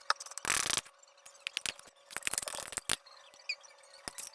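Kitchen utensil and jar handling: a few short scrapes and sharp clicks, like a spoon working peanut butter out of a jar. A faint steady hum runs underneath.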